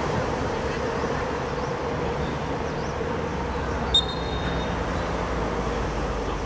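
Steady background noise of a football ground, with one short, high whistle blast about four seconds in.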